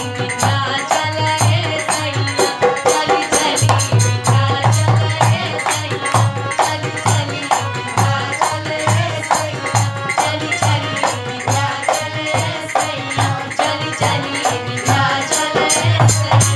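A woman singing a Bhojpuri song into a microphone over a loud backing with a steady, fast beat and shaker-like percussion.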